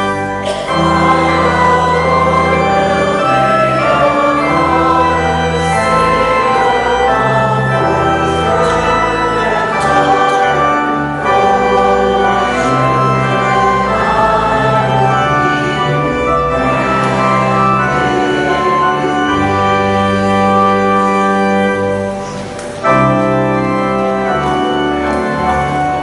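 Church organ playing slow, sustained chords over a stepping bass line, with a brief drop in volume before a new chord near the end.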